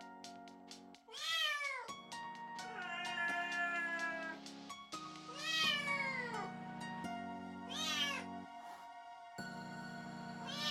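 Small kitten meowing four times in high calls, the second one long and drawn out, with another call starting right at the end, over soft background music.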